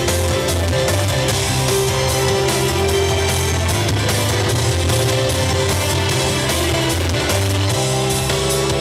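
Rock music with distorted electric guitar, bass and drums.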